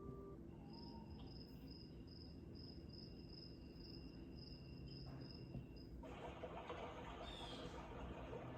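Cricket-chirping soothing-sound track played through the small speaker of a sunrise alarm clock sound machine: pulsing high chirps, about three a second, over a steady high tone. About six seconds in it switches to a rushing, hiss-like noise.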